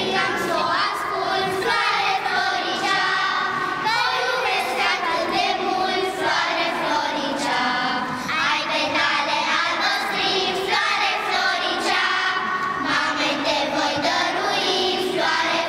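Children's choir singing together, a steady run of held, sung notes.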